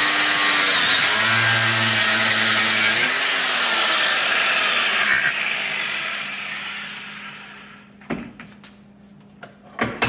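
A power cutting tool slicing through the protruding end of a half-inch bolt for about three seconds. Then its whine falls in pitch and fades as the tool spins down. Two short knocks come near the end.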